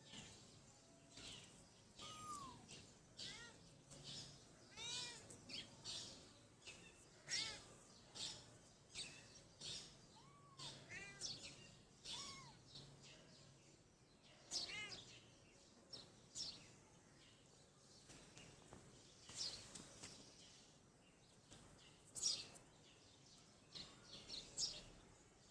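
Kitten mewing over and over: short, high-pitched, arched mews, one or two a second, some louder than others.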